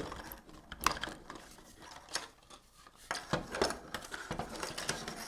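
Hard 3D-printed plastic parts clicking and knocking together as the dinosaur's head is pressed onto its neck joint: a string of separate sharp clicks and taps, the loudest about a second in.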